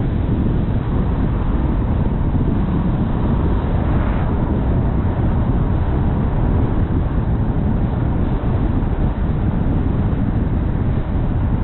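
Steady low rumble of a car on the move: wind buffeting the microphone over tyre and road noise. A brief brighter hiss comes about four seconds in.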